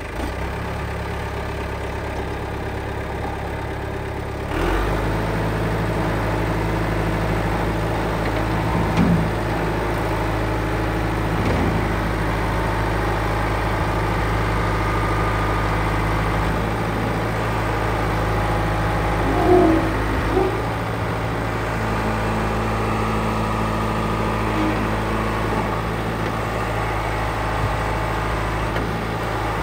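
John Deere 2755 tractor's four-cylinder diesel engine running just after starting, stepping up to a faster, louder speed about four and a half seconds in and then running steadily.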